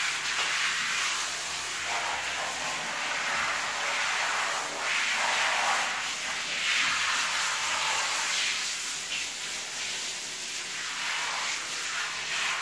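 Handheld shower head spraying water onto a dog's wet coat and a tiled floor: a steady hiss that swells and eases as the spray is moved around.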